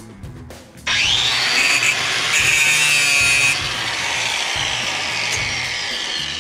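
Angle grinder starting up about a second in with a rising whine, then grinding into the sofa's steel frame with a loud, steady hiss. It eases off slightly after about three and a half seconds.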